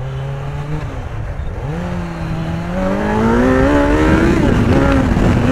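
Kawasaki Z900's inline-four engine accelerating hard through the gears: a shift about a second in, then the revs climb steadily for over two seconds, a brief dip at the next upshift just past four seconds, and a steady pull after it.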